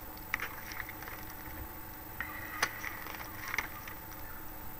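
Pen scratching on paper as short lines are drawn, with a few light clicks, the sharpest about two and a half seconds in.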